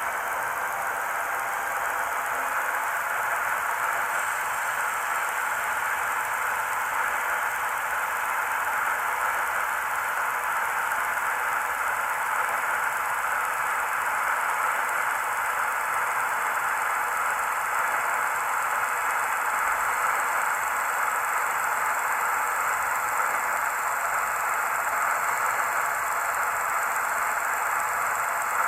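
Fleischmann N-scale model of the BR 716 Beilhack snow blower running slowly along the track with a steady hiss that grows slightly louder as it comes closer.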